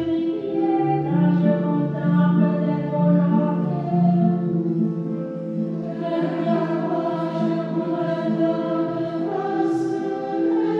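Choir singing a church hymn, many voices together holding long notes that change every second or so.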